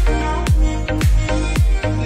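Background music with a steady deep kick drum, about two beats a second, under sustained melodic lines.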